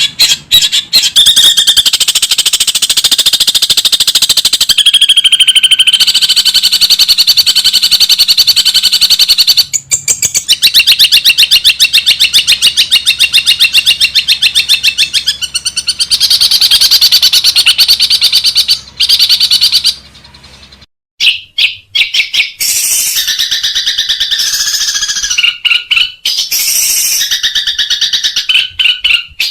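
Long-tailed shrike (cendet) singing a loud, rapid chattering song of fast repeated notes, with short breaks about ten seconds in and a brief gap about two-thirds of the way through.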